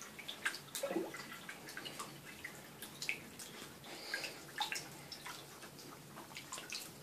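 Hedgehogs paddling in shallow bathwater, making small irregular splashes and drips.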